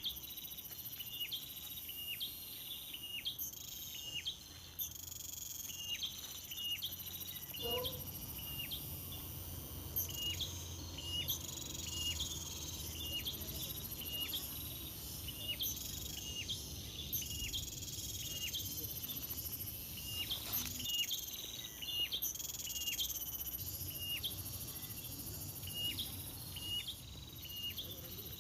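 Outdoor ambience: insects keep up a steady high buzz that breaks off now and then, while a bird gives short, repeated chirps, about one or two a second.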